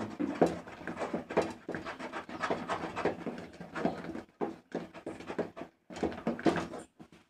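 Thick kali porridge being stirred hard in a pot: a quick, irregular run of scraping and slapping strokes, a few a second, with short pauses.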